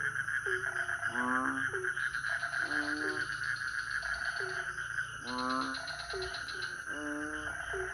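Frogs calling over and over, about ten short pitched croaks that glide in pitch, over a steady high insect drone.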